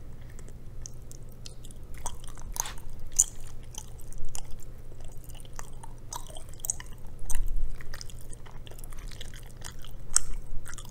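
Close-miked chewing of chewy rice cakes and noodles in cheese rabokki: wet, irregular mouth smacks and clicks, a few louder bites standing out.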